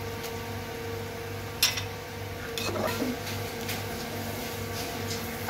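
A steady low hum with a few sharp knocks and clinks of a utensil against the cooking pot of boiling rice, the loudest about a second and a half in and a couple more around three seconds.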